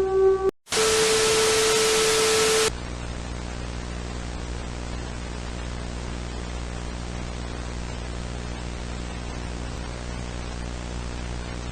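An electronic alert tone cuts off half a second in. After a brief silence, loud broadcast static with a steady tone runs for about two seconds, then drops to a quieter steady static hiss with a low hum: the emergency broadcast has gone off the air.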